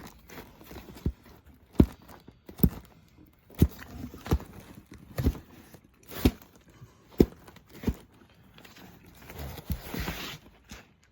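Vinyl record sleeves being flipped through one by one in a box, each landing against the next with a sharp slap, about one a second. A brief rustle comes near the end.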